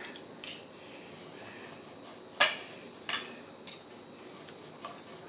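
Knife and fork cutting corned beef on a dinner plate: a few sharp clinks and scrapes of the cutlery against the plate, the loudest about two and a half seconds in.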